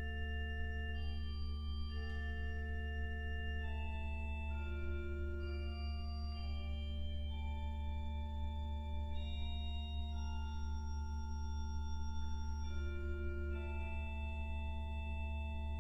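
Klais pipe organ playing slow, sustained chords over an unchanging deep bass note, with the upper notes moving to new pitches every second or two.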